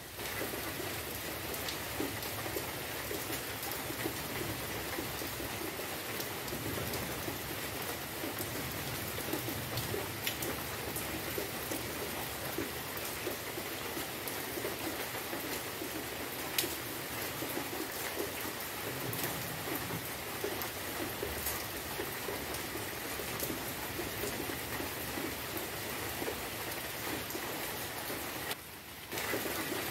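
Steady rain falling on trees and wet ground, with scattered louder single drop hits. The sound briefly drops away shortly before the end.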